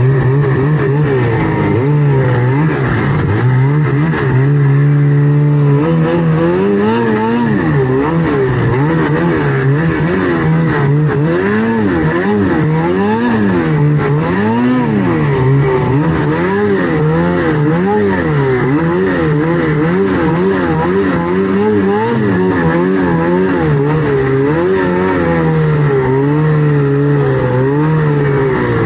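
Snowmobile engine running hard under a constantly changing throttle, its pitch rising and falling about once a second, steadier for a moment about five seconds in.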